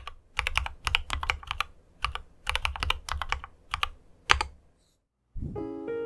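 Typing on an IQUNIX A80 Explorer mechanical keyboard with clicky Cherry MX Blue switches, keystrokes coming in quick runs separated by short pauses, stopping about a second before the end.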